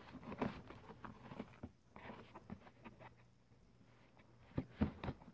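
Fingers picking and scratching at packing tape and the flaps of a cardboard shipping box: a faint scatter of small taps and scrapes, with a few louder knocks near the end.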